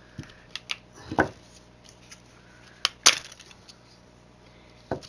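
Plastic remote-control case and small parts being pried and handled during a teardown: a handful of sharp clicks and clinks, the loudest about three seconds in.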